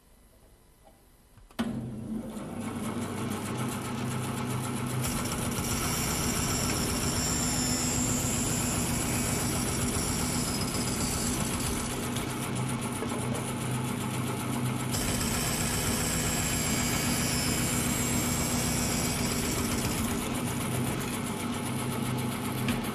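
Vertical bandsaw switched on about a second and a half in, its motor then running with a steady hum. From about five seconds in, the blade cuts through a wooden block to finish a tenon, with a hiss that eases off around fifteen seconds and returns briefly.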